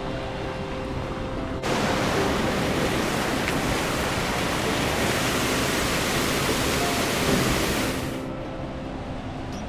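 Waterfall rushing, a loud steady noise that cuts in abruptly about two seconds in and stops about eight seconds in. Soft background music with held notes is heard before and after it.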